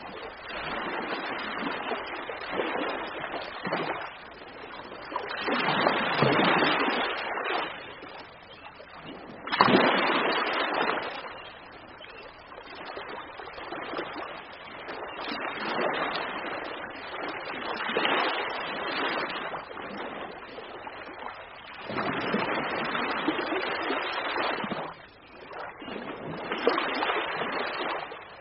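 Ocean waves breaking and washing in, swelling and falling every few seconds, with a sudden louder crash about ten seconds in.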